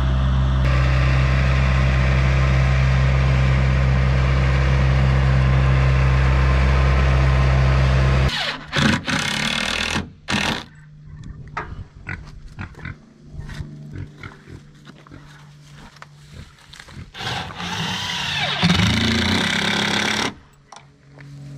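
Skid-steer loader engine running steadily for about eight seconds. It cuts off abruptly, and a cordless impact driver then drives screws into wooden boards in a series of short bursts.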